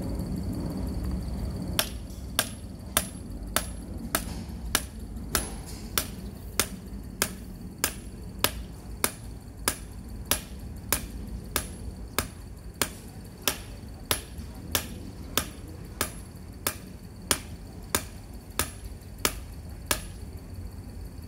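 Hammer striking the top of a metal grounding rod, driving it into the soil: a long series of evenly spaced blows, just under two a second, starting about two seconds in.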